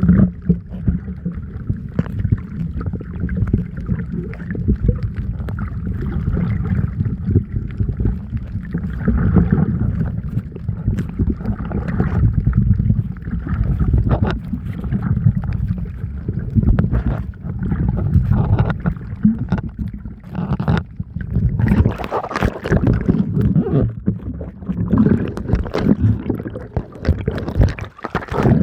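Water sloshing and splashing around the camera, a muffled low rumble with many small clicks. It drops briefly about twenty seconds in, then comes back with sharper splashes.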